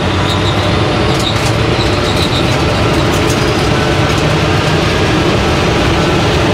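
Electric-converted VW Beetle drag car accelerating under full throttle, a steady loud noise of drivetrain, tyres and wind. The acceleration is sluggish: the motor controller is cutting back power, which the uploader puts down to over-sensitive traction control derating the motor.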